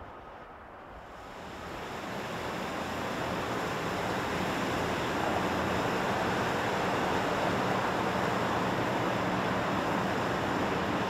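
Steady rushing of water, fading up over the first two or three seconds, with a faint low hum beneath it.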